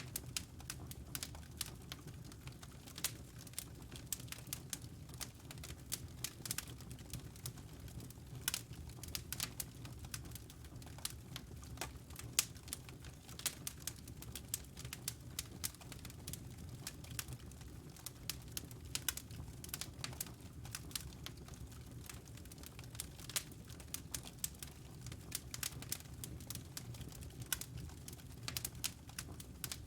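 Wood logs burning in a fireplace, crackling with many small irregular pops and snaps, some louder than others, over a steady low rumble.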